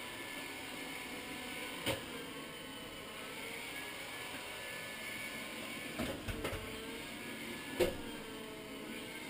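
iRobot Scooba 230 robotic floor scrubber running, a steady motor whir whose pitch gently rises and falls. Sharp knocks come about two seconds in, a few more around six seconds, and the loudest one near eight seconds.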